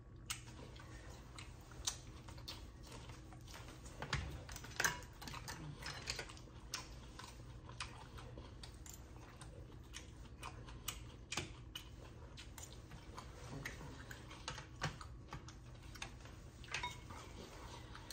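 Irregular small clicks and smacks of someone eating close to the microphone: chewing, with a knife and fork against a plate.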